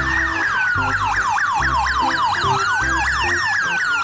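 Electronic police siren, as from a toy police motorcycle: a fast yelp repeating about six times a second over a slower wailing tone that rises and falls. Background music with a steady beat plays underneath.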